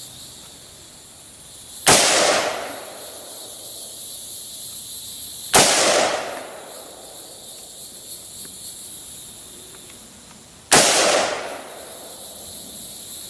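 Three single gunshots from a Colt LE6940 .223 rifle, fired a few seconds apart, each a sharp crack with a short echoing tail.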